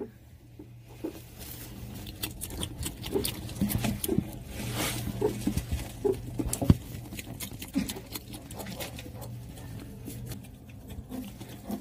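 Close-up eating sounds of a meerkat rummaging in shavings: irregular crunching, crackling and scratching clicks as it chews its food and claws through the bedding, over a low steady hum.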